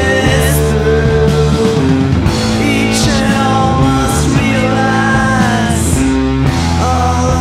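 Live psychedelic rock band playing loud: electric guitars, bass and drums, with a voice singing over them.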